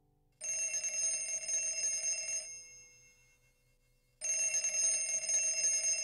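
Telephone bell ringing twice, each ring about two seconds long, with a pause of under two seconds between.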